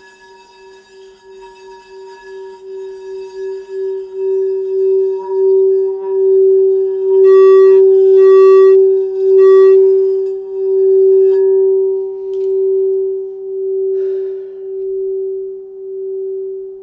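Crystal singing bowl ringing one steady low tone that pulses in a slow wobble. It swells to its loudest about halfway through, with three brief higher overtones, then slowly fades.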